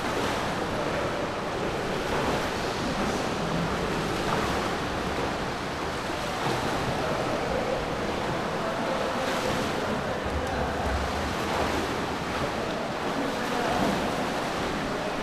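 Swimmers' strokes splashing and churning the water, a steady rushing wash of noise with no clear single splashes standing out.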